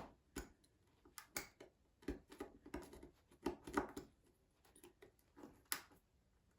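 Faint, irregular clicks and scrapes of a hand tool picking at a tiny nail stuck in a wooden toolbox board, trying to work it loose.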